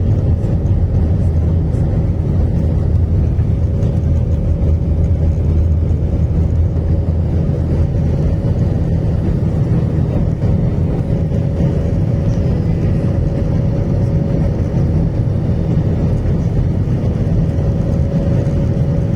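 Steady, loud low drone of an aircraft's engines and airflow, heard from inside the passenger cabin, with a faint steady higher hum over it.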